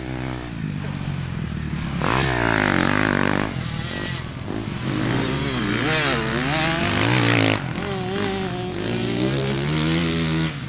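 Several motocross dirt bikes accelerating away together, their engines revving, the pitch rising and falling again and again as they ride off.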